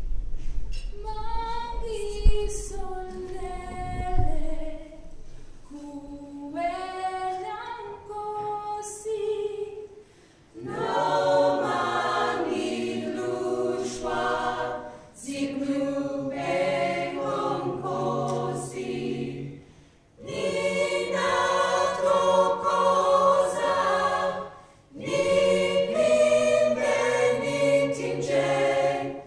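Mixed a cappella choir singing a South African song. A single voice sings the opening phrases alone, then the full choir of men's and women's voices comes in about ten seconds in, singing in phrases with short breaths between them.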